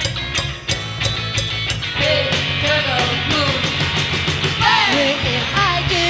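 Garage pop band playing live: drums, bass and electric guitar, with a voice singing a melody from about two seconds in.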